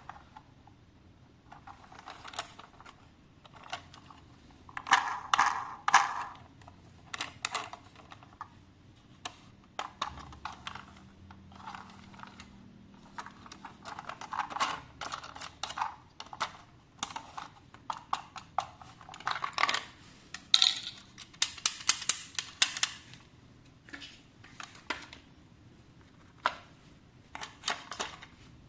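Hands handling a plastic toy and its packaging: irregular clicks, taps and rustles, with louder crinkling spells about five seconds in and again about twenty seconds in.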